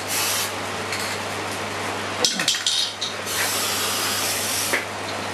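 Aerosol can of black spray paint hissing in bursts that start and stop, with a short clatter of clicks a little over two seconds in. A steady low hum runs underneath.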